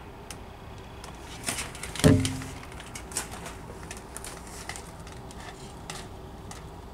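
A short run of metallic clanks and bangs. The loudest comes about two seconds in and has a brief low ring after it, with a few lighter knocks around it.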